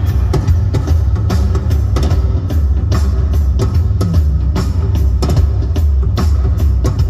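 Live rock music with a prominent drum kit and heavy bass, played loud through a car audio system (Infinity Kappa speakers, Alpine PXE-R500 DSP amplifier and Alpine S800 subwoofer box) and heard inside the cabin.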